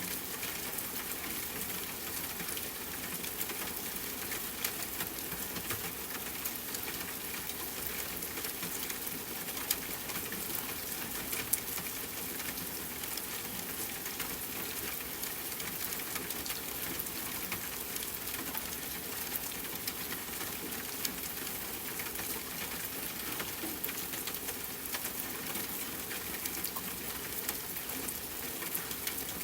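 Steady rainfall hiss mixed with a crackling wood fire, small sharp pops scattered throughout.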